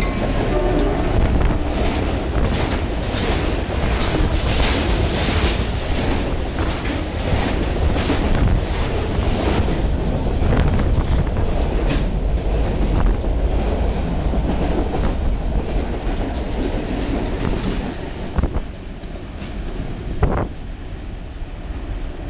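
Diesel freight train rolling past at close range: the lead MP15 switcher locomotives go by at the start, then a long string of freight cars clatters over the rail joints in a steady rhythm of wheel clacks. About eighteen seconds in the sound drops off as the last cars pass and the train moves away.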